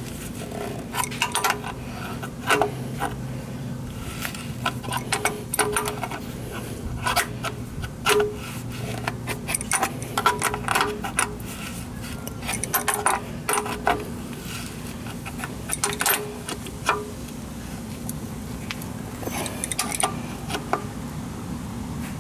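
Wrenches clinking and scraping against the metal fittings of a turbo oil drain line as they are tightened, in irregular clusters of short clicks, over a steady low hum.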